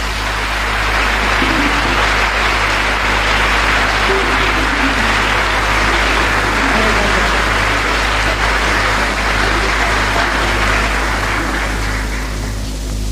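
Audience applauding, the clapping dying away near the end, with a steady low mains hum underneath.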